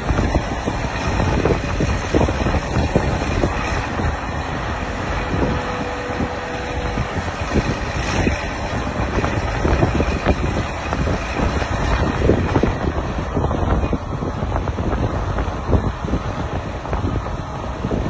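Wind buffeting the microphone in uneven gusts over a steady low rumble.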